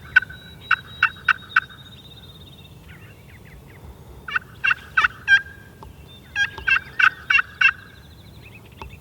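Hen wild turkey yelping: three runs of short, evenly spaced yelps, the first right at the start, the second about four seconds in and the third about six and a half seconds in.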